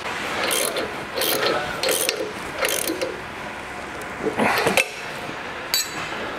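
Ratchet wrench clicking in short back-and-forth strokes, about four strokes in the first three seconds and a couple more later, tightening the fastener on the auger's splined shaft end.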